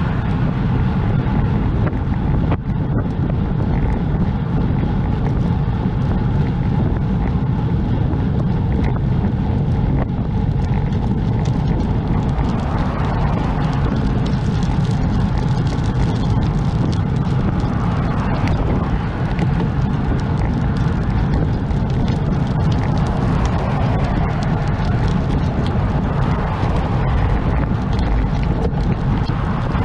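Steady wind rush on a bicycle-mounted camera's microphone while riding, with the noise of passing cars swelling and fading several times.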